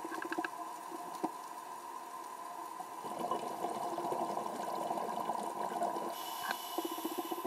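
Underwater ambience picked up through a camera housing: a steady hum with scattered sharp clicks, and a denser watery rush from about three to six seconds in.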